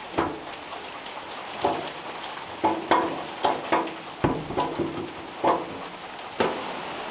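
A hand wrench clinking and scraping against the fittings of the 1934 Ford's original steel gas tank as they are worked loose: a string of irregular metallic taps and knocks, some with a short ring.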